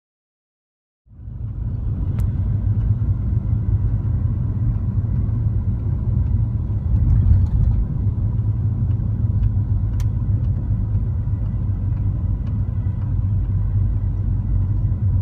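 Car driving, heard from inside the cabin: a steady low rumble of engine and tyres on the road that starts about a second in.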